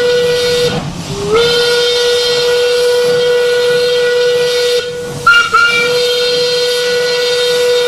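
Steam locomotive whistle blowing long blasts on one steady note, with a hiss of steam under it. It breaks off briefly about a second in and comes back sliding up slightly to pitch, then breaks twice more around five seconds in.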